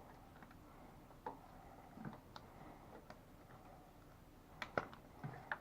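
Faint, scattered clicks and light knocks, about seven of them, from handling the removed ignition coils and their plastic wiring connectors.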